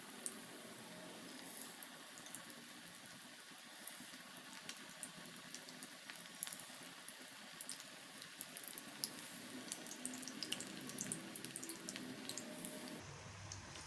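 Balls of rava pakoda batter deep-frying in hot oil: a steady sizzling hiss with many scattered crackles and pops from the bubbling oil.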